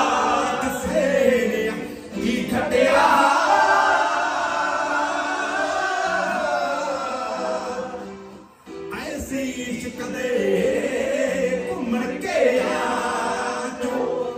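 A group of men singing together in chorus, with long held notes and a short break about eight seconds in.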